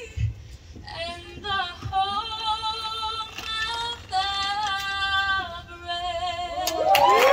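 A woman singing live into a microphone, in phrases of held notes with vibrato separated by short breaths. Near the end a crowd breaks in with cheers and whoops, louder than the singing.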